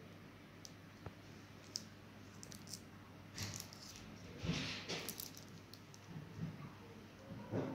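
Faint scattered clicks and clinks over a low steady hum, with a louder cluster of rattling clinks about halfway through and a single knock near the end.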